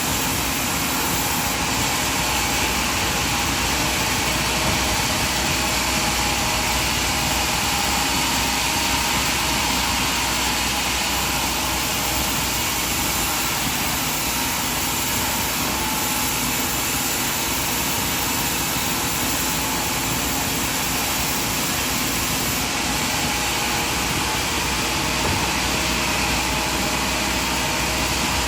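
Sawmill machinery running steadily: a constant, even mechanical noise with no breaks or changes.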